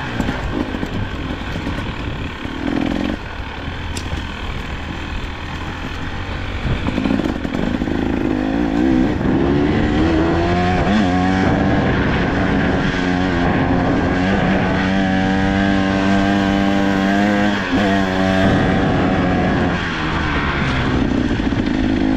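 KTM EXC 300 TPI two-stroke enduro motorcycle riding on trail under varying throttle. The engine note is lower and choppier for the first several seconds, then revs climb and hold higher and fairly steady, with a brief dip near the end.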